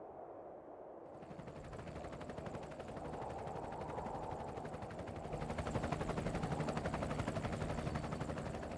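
A fast, even rattle of many ticks a second that builds up over several seconds and fades near the end.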